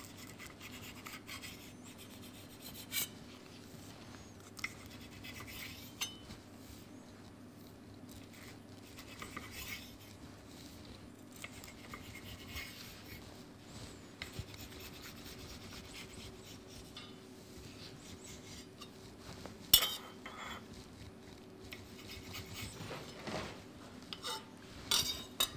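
Chef's knife slicing sheets of lavash flatbread into wedges on a marble worktop: faint scraping and crunching of the blade through the bread, with a few sharp clicks of steel on stone, the loudest about two-thirds of the way in.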